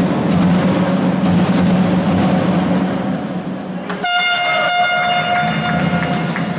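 Hall noise with a steady low hum, then about four seconds in a loud, steady horn blast cuts in abruptly and holds for about two seconds.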